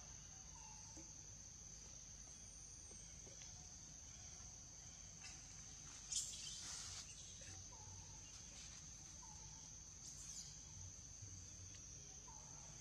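Faint, steady high-pitched insect drone. A short sharp noise breaks in about six seconds in, and a smaller one near ten seconds.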